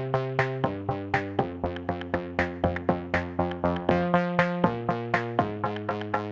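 Background electronic music: a steady run of short synthesizer notes, about four a second, over held low chords.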